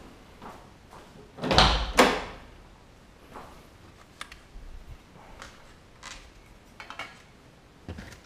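Two loud knocks close together about a second and a half in, followed by scattered light clicks and rustling of handling.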